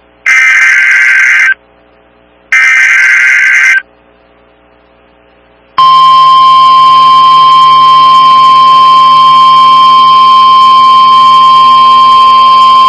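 NOAA Weather Radio Emergency Alert System (SAME) header: two loud, rasping digital data bursts about a second apart. About six seconds in, the steady 1050 Hz warning alarm tone starts and holds. The sequence signals that a new warning broadcast follows, here a severe thunderstorm warning.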